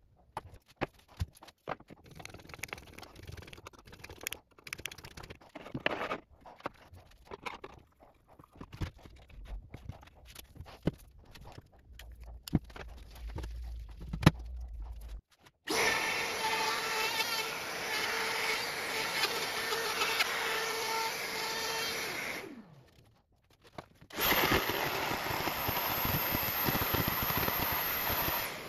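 Clicks and knocks of a DeWalt compact router being set on an oak panel on a pivot jig, then the router running steadily for about seven seconds as it cuts a circular groove in the oak. A second loud, steady power-tool run starts about four seconds later and stops just before the end.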